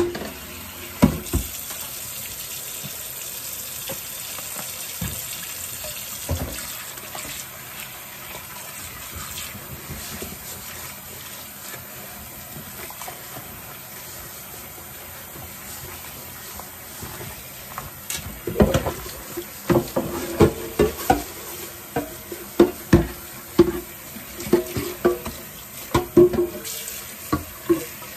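Water running from a kitchen tap into a sink, a steady rush; about two-thirds of the way in, a quick run of knocks and clatters starts over it.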